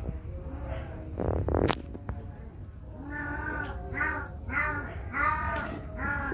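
An animal calling about five times in quick succession in the second half, each call short and arched in pitch; a sharp click about a second and a half in.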